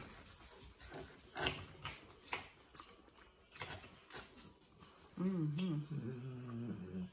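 Quiet eating sounds: knives and forks clicking and scraping on plates as steak is cut, with chewing, then about five seconds in a wavering hummed "mmm" of someone eating.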